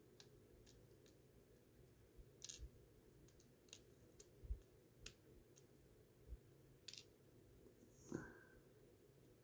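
Faint, irregular clicks of fine steel tweezers picking at a tiny watch part on a work mat, over near silence, with a brief handling knock about eight seconds in.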